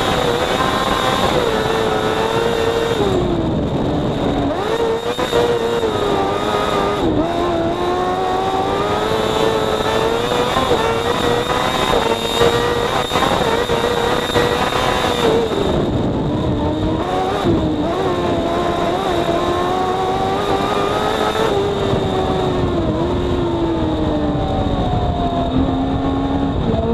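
Onboard sound of a kartcross buggy's 600 cc motorcycle engine at high revs, its pitch dipping and climbing again several times with gear changes and lifts off the throttle. Near the end the revs fall steadily as the buggy slows.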